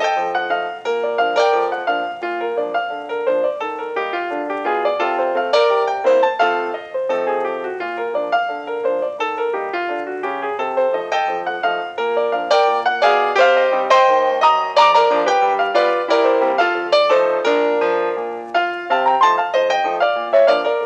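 Background piano music: a lively, bouncy tune of many quick notes, a little louder in the middle.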